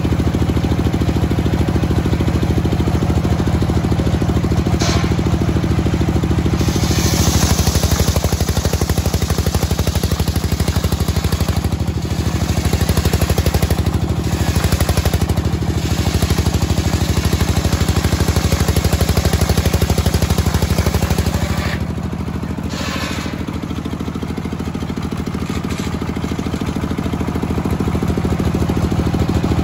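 Engine-driven homemade circular saw ripping a teak log, the engine running steadily. The cutting hiss is loudest from about seven seconds in; about twenty-two seconds in the cut finishes and the saw runs free, quieter.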